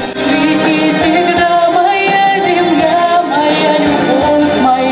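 A woman singing into a microphone over instrumental accompaniment, amplified through the hall's sound system, holding long notes.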